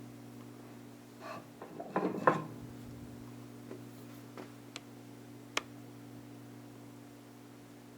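Metal tools and hardware clinking and knocking as they are handled: a cluster of clatter about two seconds in, then a few sharp single clicks, over a steady low hum.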